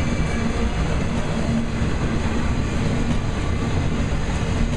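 Trailer-carrying flatcars of an intermodal freight train rolling steadily past: a continuous rumble of steel wheels on the rails.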